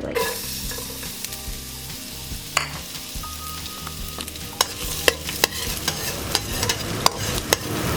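Garlic sizzling in hot oil in a pan while a utensil stirs it, with sharp taps against the pan that come more often from about halfway in.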